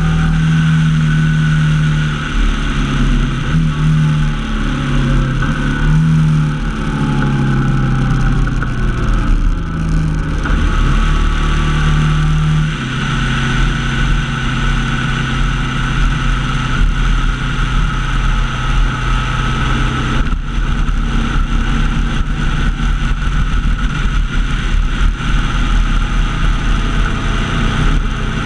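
Honda NT700V Deauville's V-twin engine running under way. Its pitch steps up and down several times in the first dozen seconds as the throttle and gears change, then holds steadier and lower.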